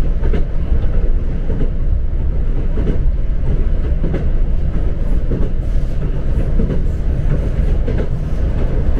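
Passenger train running along the track, heard from inside the carriage: a steady low rumble with faint, irregular clicks of the wheels over the rails.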